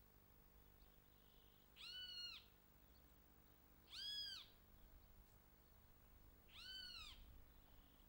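Three mewing calls about two seconds apart, each about half a second long and rising then falling in pitch, over a faint outdoor background.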